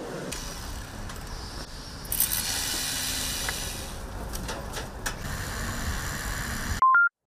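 Building-site noise: a steady background rumble with scattered clanks and knocks. Near the end, a short, loud two-note electronic beep, the second note higher, then silence.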